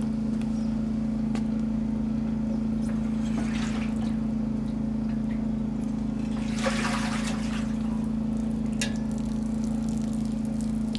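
Water running steadily over a constant low hum, with two brief louder swells of splashing, one a few seconds in and one past the middle.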